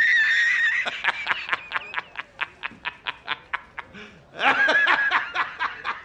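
A man laughing hard in a high, squealing voice: a long squeal, then a fast run of short ha-ha pulses, then another squeal about four and a half seconds in, breaking back into quick pulses.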